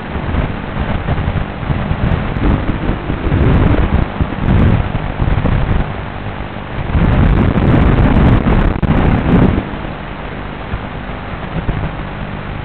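FPV quadcopter in flight, heard as a loud rushing, rumbling noise of wind and spinning motors buffeting its microphone. The noise surges several times and settles lower near the end.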